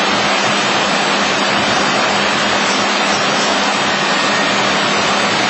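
Busellato nested-based CNC router machinery running: a loud, steady rushing noise with a constant low hum beneath it.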